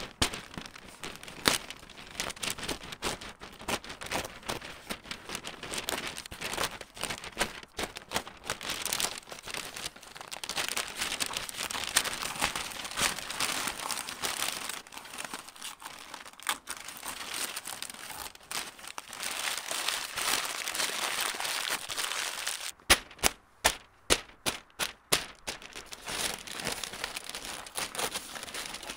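Brown masking paper and blue masking tape being handled, crumpled and peeled away from a car's window openings: continuous paper crinkling and rustling. About three-quarters of the way through comes a quick string of about ten sharp snaps.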